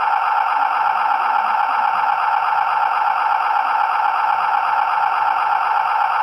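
Small electric motor and plastic gearbox of a remote-control toy vehicle, running steadily with an even whirring hum.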